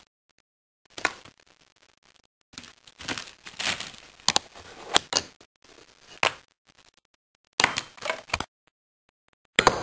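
Fingerboard tricks on a wooden table: sharp clacks of the little board popping and landing, wheels rolling on the wood between them, in scattered runs with short pauses.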